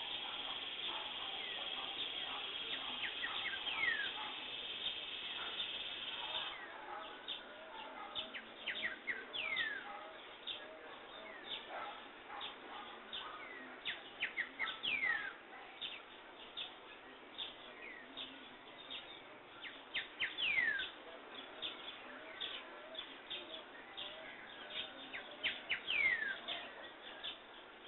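Wild birds chirping and calling, with many short chirps and repeated falling whistles. A steady high-pitched hiss sits under the calls and stops about six seconds in.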